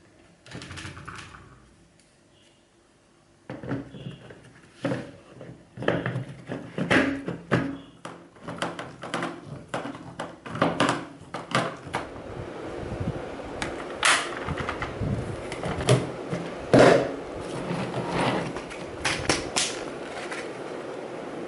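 Hard plastic parts of a cereal and legume dispenser knocking and clicking as they are fitted back together, in quick irregular taps with a few louder knocks. A steady hiss comes in underneath about halfway through.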